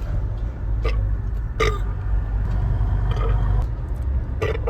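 Steady low rumble of a moving car heard from inside the cabin, with four short, sharp sounds spread unevenly through it.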